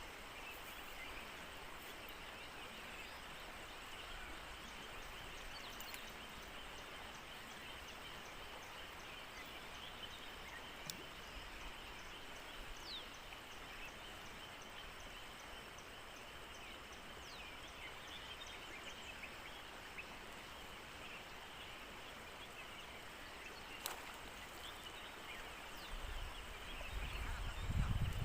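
Steady outdoor background hiss with a few faint chirps and clicks scattered through it, and a low rumble building near the end.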